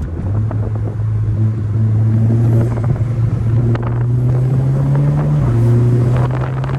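Stage 2+ tuned Mk6 Golf R's engine running under acceleration, its pitch climbing steadily, dropping with a gear change about five seconds in, then climbing again.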